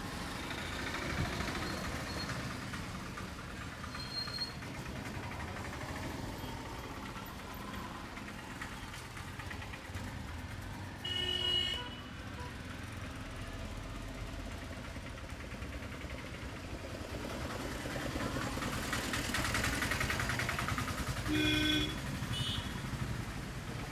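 Street traffic noise with two short vehicle horn toots, one about halfway through and another near the end.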